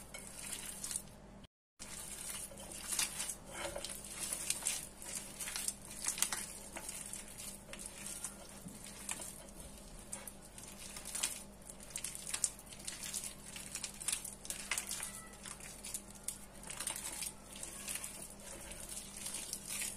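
A rubber-gloved hand kneading and rubbing a sticky mixture of chopped dates, nuts, coconut and honey in a glass bowl: irregular soft crackling and rustling of the glove working through the mixture.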